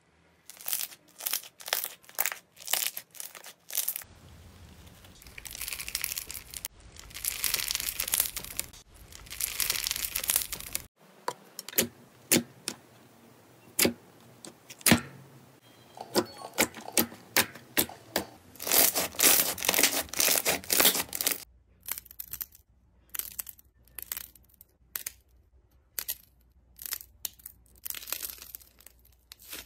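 Slime being poked, pressed and squeezed by hand: a run of sharp sticky pops and clicks, with longer crackling, tearing stretches as the slime is kneaded and pulled apart.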